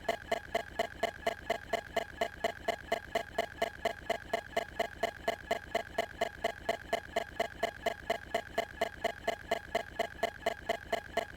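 A steady, even ticking, about four ticks a second, over a faint steady high tone.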